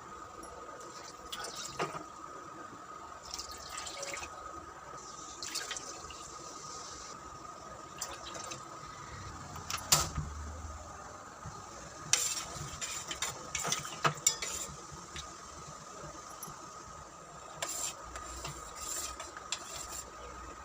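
Kitchen preparation sounds: liquid being poured for a few seconds early on, then scattered clinks and knocks of utensils against dishes, bunched in clusters through the middle and near the end, over a faint steady high tone.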